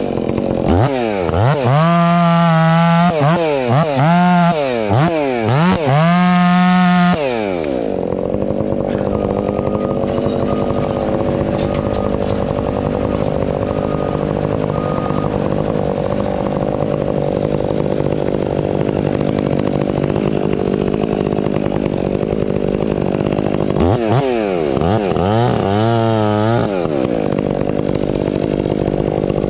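Stihl 500i two-stroke chainsaw, revved up and down several times, then running steadily at a lower pitch for a long stretch, with another short run of revs near the end.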